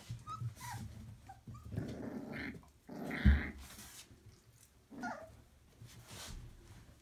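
Young puppies play-fighting, with short high squeaks and yips, growls and scuffling, and a single sharp thump about three seconds in.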